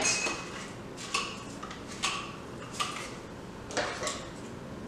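Metal pole parts being handled, giving four or five light clinks and knocks about a second apart.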